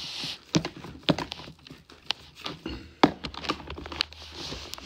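Handling noise from a cordless vacuum cleaner's plastic parts being taken apart by hand: a few sharp plastic clicks and knocks with light rustling between them, the motor off.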